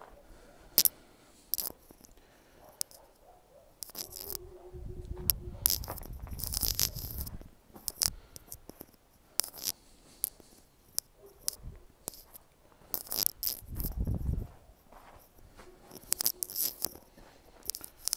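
Footsteps crunching on packed snow, irregular and sharp, with two stretches of low rumble on the microphone, the longer one a few seconds in and a short one near the end.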